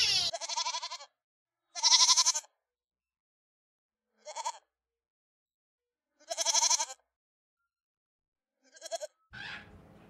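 Goat bleating: a series of separate short, wavering bleats a couple of seconds apart, with silence between them.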